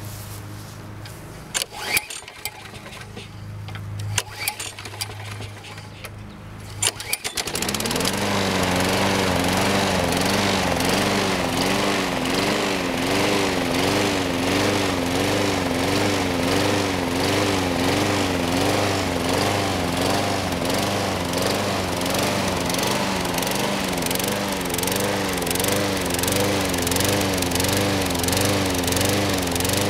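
Sears Craftsman 21-inch push mower engine being pull-started, with a few sharp sounds from the attempts, catching about seven seconds in. It then runs with its speed surging up and down at an even pace of about once a second. The owner puts the revving down to a fuel problem, perhaps gook in the carburetor.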